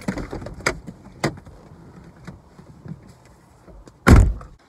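People climbing out of a car, heard from inside the cabin: rustling and a few sharp clicks, then a car door slamming shut about four seconds in.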